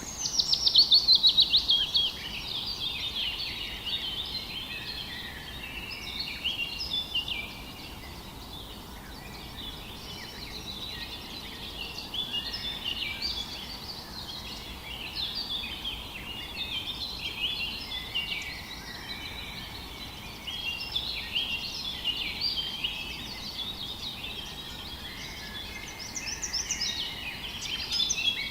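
Several birds singing and calling at once in a dense, overlapping chorus of short, high chirps and trills over a faint steady background. A loud, fast run of notes opens it, and another loud run comes near the end.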